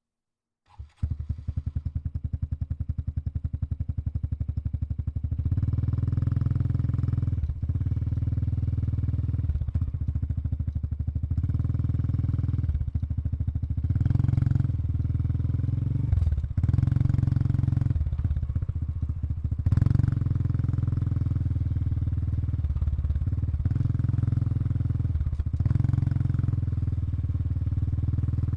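Honda Super Cub 110 Pro's air-cooled single-cylinder four-stroke engine starting up about a second in and idling through its exhaust, with a few short throttle blips.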